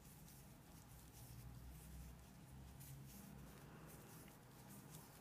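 Near silence: faint soft rustles and light ticks of yarn being worked with a metal crochet hook, over a low room hum.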